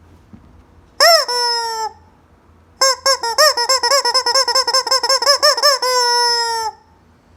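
Rubber squeeze-toy chicken squawking. One short squawk, then after a pause a fast run of about five squawks a second that ends in a long, slightly falling squeal.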